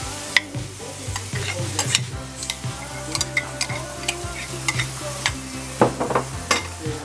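Chicken masala sizzling in a steel pot with a dollop of yogurt just added, with scattered clicks of a metal spoon against the pot and a steady low hum underneath.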